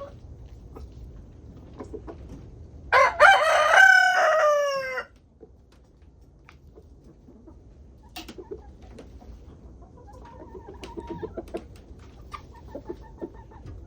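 A rooster crows once about three seconds in, a loud call of about two seconds that falls in pitch at the end. Around it, hens cluck softly.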